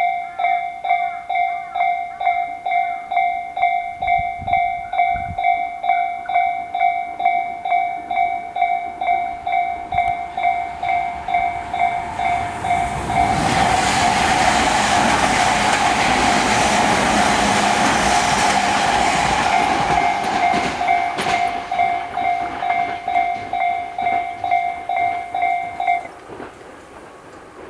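Japanese electronic level-crossing bell of the Tobu type-C (Tojo Line style) ringing steadily at about one and a half strikes a second. About halfway through, a Tobu 60000 series electric train passes for about eight seconds, its running noise on the rails swamping the bell. The bell stops shortly before the end as the crossing clears.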